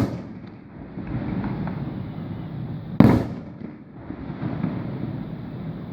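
Fireworks: a loud shell burst right at the start and another about three seconds in, with a continuous rumble in between.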